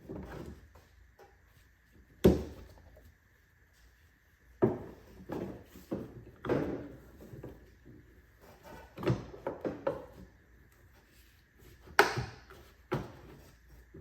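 Plastic fender-arch trim molding knocking and clacking against the wheel arch as it is lined up and pressed into place on its clips, with handling rustle between. There are a few sharp knocks, the loudest about two seconds in and near the end.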